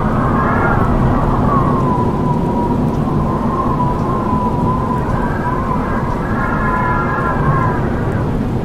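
Howling wind: a steady rushing roar with a high, wavering whistle-like howl over it, which turns fuller and layered in the second half.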